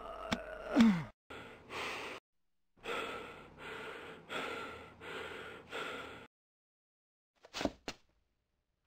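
A short voiced gasp falling in pitch, then quick, heavy breathing, about seven breaths in five seconds, as if frightened. Two brief sharp sounds come near the end.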